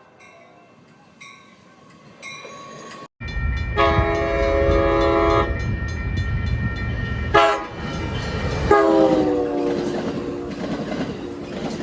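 Passenger-train cab car's air horn sounding a chord: a faint blast at first, then, over the loud rumble and clatter of the train going by, a long blast, a short one and a longer one whose pitch drops slightly as it passes.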